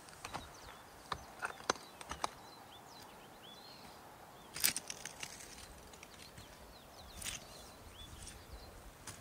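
Irregular crunching steps on loose lava rock: a quick cluster at the start, the loudest a little before halfway, more near the end. Faint high chirps of small birds sound in between.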